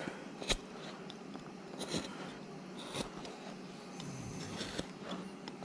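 Hand-pushed carving gouge slicing chips out of a wooden carving blank: a series of short, crisp crunching cuts, the sharpest about half a second in.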